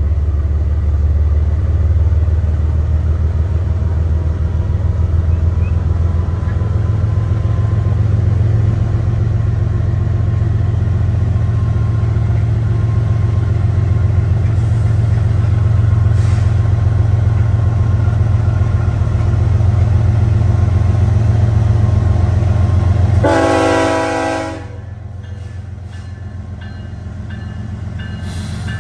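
Norfolk Southern freight's diesel locomotives pulling away after a stop, a steady low engine rumble. About 23 seconds in the lead locomotive sounds one air horn blast of about a second and a half.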